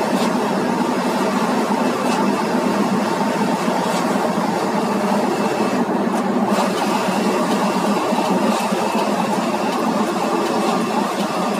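Steady engine and road noise inside an ambulance's cab as it drives along.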